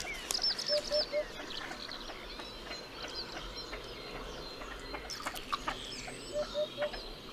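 Mixed wild birdsong with many short high chirps and whistles. A low three-note call sounds twice, about a second in and again near the end.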